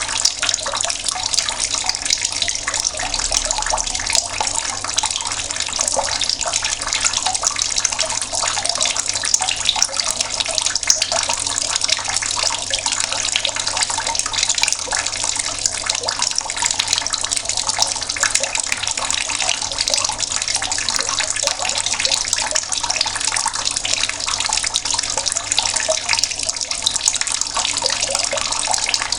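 Mains water running steadily from an outdoor tap, a continuous splashing hiss.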